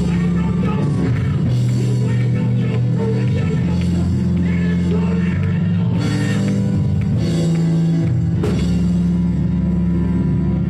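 Loud live church music: held chords over a drum kit, with several cymbal crashes about 1.5, 6, 7 and 8.5 seconds in.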